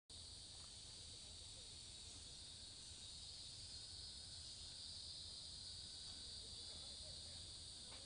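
Faint, steady high-pitched insect chorus of a tropical rainforest, droning without a break.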